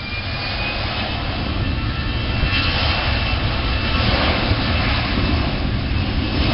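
Twin jet engines of an Airbus A320-family airliner at high power during its takeoff roll down the runway: a steady rumble with a high fan whine that rises slightly in pitch, the whole sound growing louder.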